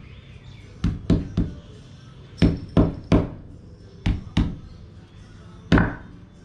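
Grilled buffalo or cow hide being pounded on a round wooden chopping block: about nine sharp knocks, mostly in quick runs of two or three. The pounding knocks the charred black layer off the hide.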